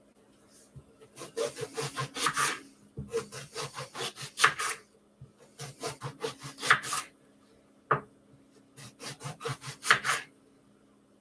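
A kitchen knife cutting with quick back-and-forth strokes on a cutting board, in four short runs with pauses between them.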